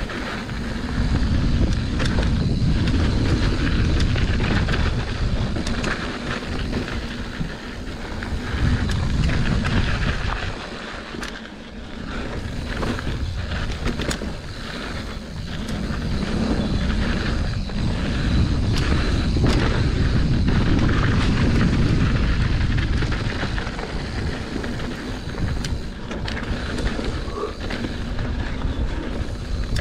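Mountain bike descending a dirt trail: wind noise on the microphone and tyres rolling over the dirt, with scattered clicks and knocks from the bike over bumps. It eases briefly about eleven seconds in.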